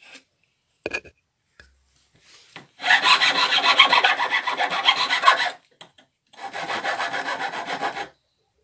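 A hand file rasping on hard floorboard wood in quick back-and-forth strokes, in two bouts: a longer one starting about three seconds in and a shorter one near the end. A light knock about a second in.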